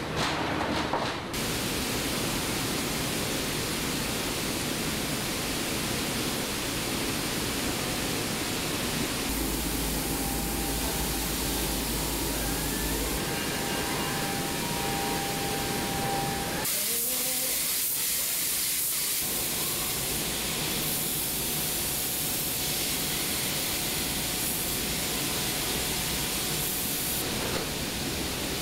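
Steady hissing noise of car-factory machinery, including robotic paint atomizers spraying in the paint shop. It shifts abruptly in tone several times, with a faint steady whine in places.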